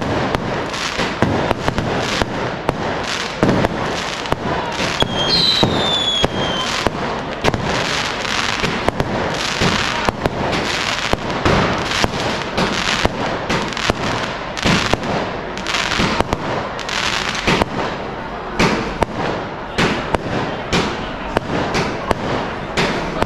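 Fireworks and firecrackers going off in quick, dense succession, a continuous run of bangs and crackling, with a falling whistle about five seconds in.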